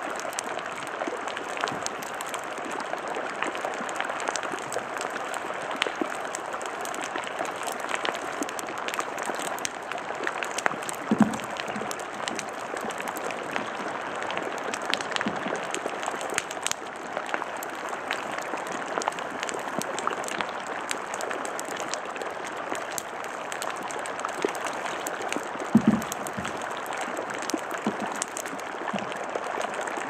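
Floating brash ice crackling and fizzing all around as trapped air bubbles escape from the melting glacier ice, a dense continuous patter of tiny pops. Twice, about a third of the way in and again near the end, a low knock as a bigger chunk of ice bumps against the kayak's hull.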